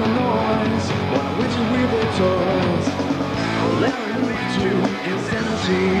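Rock music with guitar and a singing voice.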